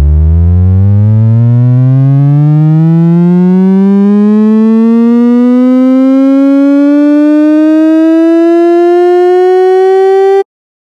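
Synthesized sonification tone of a 100 m sprint's time data: one buzzy tone rich in overtones, gliding steadily upward in pitch, quickly at first and then more gradually, and cutting off suddenly near the end.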